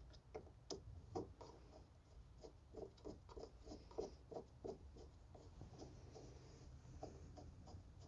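Faint, irregular small clicks and scrapes of a screwdriver turning a screw to fasten the metal weatherproof cover on an outdoor outlet box. The clicks come quickest in the middle, about three a second.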